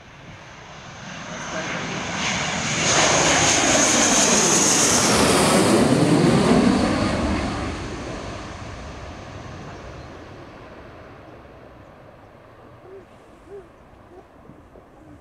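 F-15 Eagle fighter jet on landing approach with gear down, passing low overhead. Its twin-engine jet noise swells over a few seconds with a high whine on top, peaks, then fades away as it flies on.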